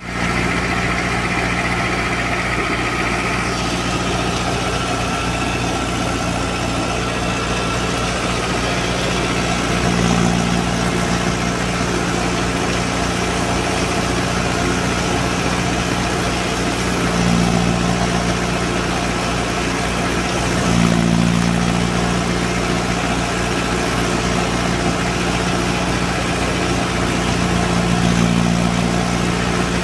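Mahindra Arjun 555 tractor's diesel engine running steadily under load while it drives a wheat thresher, the engine note swelling louder about four times as the load rises, over the thresher's steady running.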